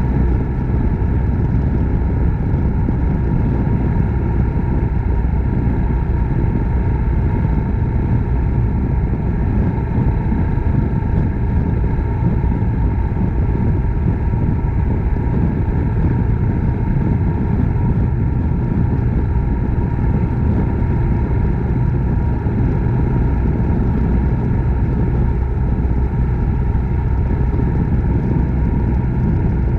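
Suzuki Grasstracker Big Boy's 250 cc single-cylinder engine running steadily, its pitch holding level with no change in revs.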